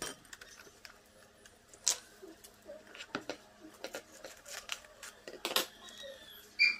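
Plastic cling wrap being pulled, torn and pressed down over a glass bowl: faint crinkling with scattered short crackles, the sharpest about two seconds in and again near the end.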